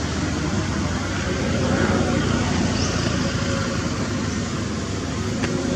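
Steady rushing outdoor background noise, with a faint short high chirp about three seconds in.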